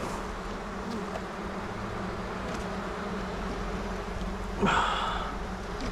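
A queenless honeybee colony in an open hive, buzzing as one steady, constant roar. The loud, frantic buzz is a sign of a stressed, queenless colony. About five seconds in, a brief louder, higher tone rises above the hum.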